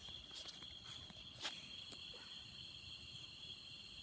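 Night insects, likely crickets, chirring steadily and quietly, with a few sharp clicks; the loudest click comes about a second and a half in.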